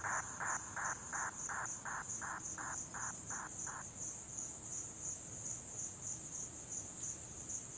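Night insects calling: a steady, high-pitched cricket trill throughout, with a second, lower-pitched caller chirping about three times a second that stops about four seconds in.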